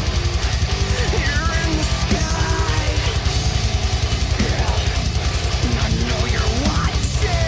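Loud heavy rock or metal song: distorted guitars over a drum kit with a fast, steady kick-drum beat.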